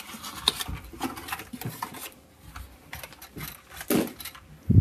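Hands working a toy out of its cardboard and plastic packaging: irregular rustling, clicks and light knocks, with two heavier thumps near the end.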